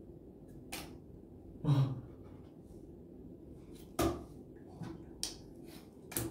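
Playing cards being flipped and laid down on a tabletop in turn: a scattering of light, sharp slaps, with one louder knock a little under two seconds in.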